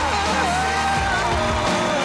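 Violin playing a slow melody of long, sliding notes with vibrato over a low, sustained accompaniment.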